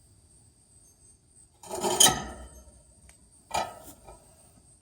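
Metal parts being handled while a new capacitor is fitted on an air-conditioner condenser unit: a scraping clatter about two seconds in, then a sharp clack.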